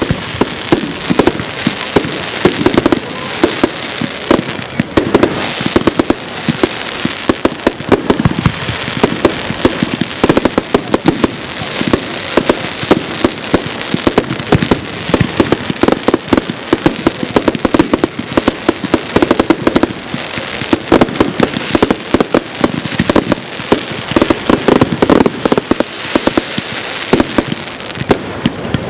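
Aerial fireworks bursting in a dense, unbroken barrage: many sharp bangs a second with no pause.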